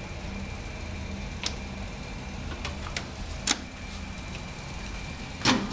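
Clicks and knocks from a mini fridge being handled, its plastic door shelves and small freezer compartment, over a steady low hum with a faint high whine. A few single sharp clicks come in the middle, and a louder clatter of knocks comes near the end.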